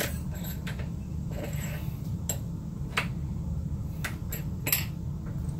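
Sharp metal clicks and clacks from a turret-type brake line flaring tool being set up for a double flare: the die turret is turned and a 1/4-inch steel line is clamped in its holder. About half a dozen clicks are scattered through, the loudest about three seconds in and near the end, over a steady low hum.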